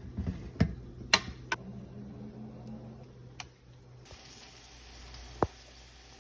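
Kitchen clatter: a few sharp knocks and clinks of cookware and utensils over a steady low hum. A steady hiss comes in about four seconds in.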